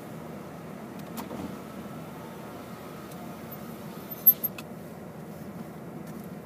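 Steady low rumble of a car's interior while driving, heard from inside the cabin. A short, sharp knock a little over four seconds in stands out above it.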